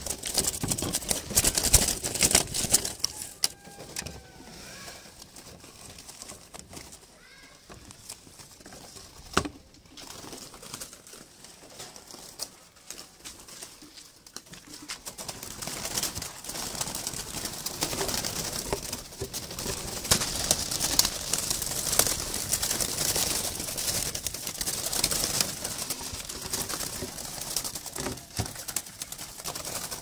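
Wire-mesh bird trap and cage being handled: rattling, clattering and scraping, loudest in the first few seconds and again through the second half, with a sharp knock near ten seconds. Captive doves give a few short calls about four to seven seconds in.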